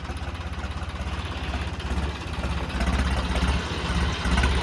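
Diesel tractor engine running with a steady, even beat, growing gradually louder.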